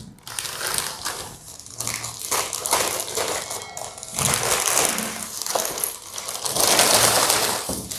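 Plastic courier mailer bag crinkling and rustling in irregular bursts as it is handled, cut with scissors and torn open.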